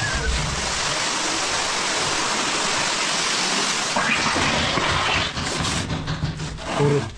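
Steady hiss of spraying water that breaks up into irregular splashes and spurts near the end.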